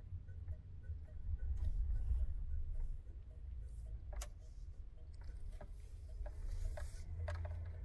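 Low road and engine rumble of a moving vehicle heard from inside the cab, with scattered small clicks and rattles at uneven intervals, thicker in the second half.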